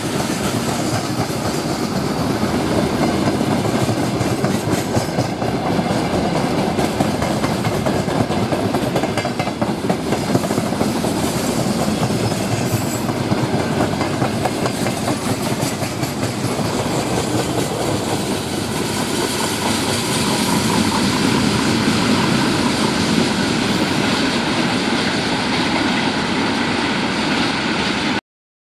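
A freight train of open-top gondola wagons rolling past at speed, a steady loud rumble with the wheels clattering over the rail joints. It cuts off abruptly near the end.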